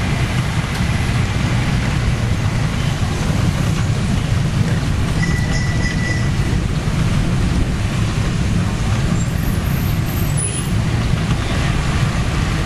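Steady low rumble of street traffic and riding noise heard from a moving becak (cycle rickshaw), with a short high tone about five seconds in.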